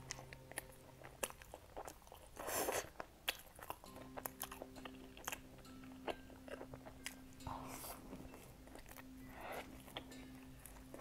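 Close-up bites and chewing of a crusted, seed-topped pastry, with sharp crunchy clicks and a few louder bites, over faint steady background music.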